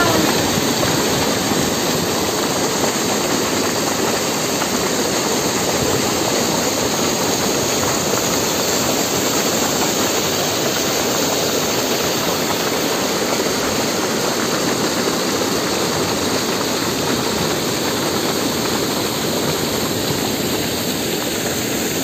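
Water pouring over a small concrete weir and churning down a channel: a loud, steady rush of white water.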